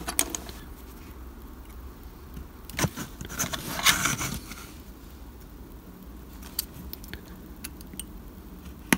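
Steel rule and craft knife handled on a sheet of embossed brick plastikard over a cutting mat: light taps and clicks, with a short scraping stretch about three to four seconds in.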